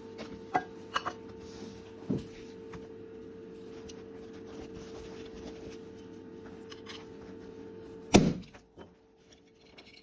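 Popcorn machine popping soybeans: a steady hum with a few sharp knocks, then one much louder bang about eight seconds in, after which the hum falls away.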